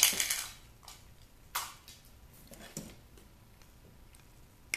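Handling noise from wires being worked with wire cutters: a short rustling scrape at the start, a couple of shorter scrapes and knocks, and one sharp snip near the end.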